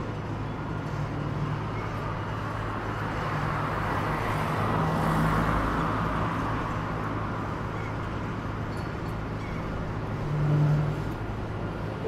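Diesel engines of heavy construction machinery running steadily with a low hum. A wider wash of noise builds to about five seconds in, and an engine note briefly grows louder about ten seconds in.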